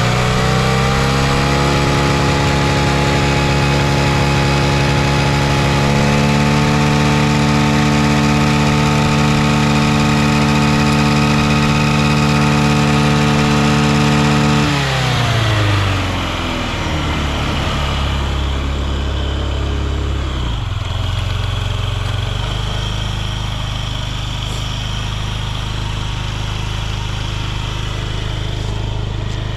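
Honda Smart Dio AF56 scooter's carburetted single-cylinder engine held at raised revs, then dropping back to a steady idle about halfway through. It runs smoothly without abnormal noise.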